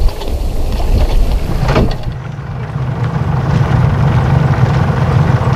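Sailboat's inboard engine running slowly as the boat motors up to a mooring buoy, with wind rushing on the microphone; about two seconds in the wind noise eases and a steady low engine hum comes to the fore.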